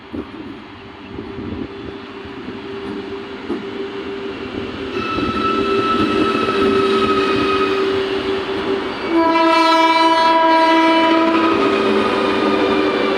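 WAG-12 electric locomotive approaching with a rumble that grows steadily louder, sounding its horn twice: a first blast about five seconds in lasting about three seconds, then a louder, lower-pitched blast of about two seconds near the end.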